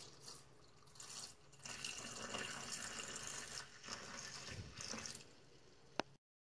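Witch hazel poured in a thin stream into a glass jar of rose petals, splashing into the liquid already in the jar. The pour starts about a second in, is heaviest through the middle and tails off about five seconds in. A single sharp click comes near the end.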